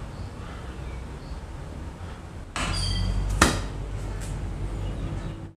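Low steady background rumble. About two and a half seconds in comes a short run of knocks and clicks, the sharpest just under a second later.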